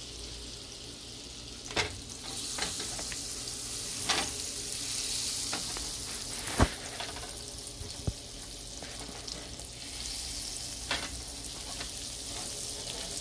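Butter melting and sizzling in a hot frying pan: a steady hiss that grows stronger a couple of seconds in, with a few sharp pops, the loudest about six and a half seconds in.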